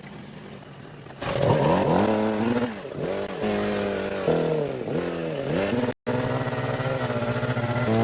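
A car engine running and being revved about a second in, its pitch falling and rising again in several throttle blips, then holding steadier. The sound drops out abruptly for an instant near six seconds and cuts off just at the end.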